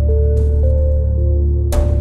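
Background music: slow ambient music with held notes over a deep, steady low drone, and a soft percussive hit near the end.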